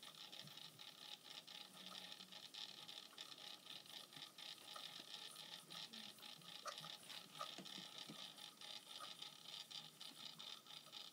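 Near silence: faint steady hiss with a few scattered faint ticks.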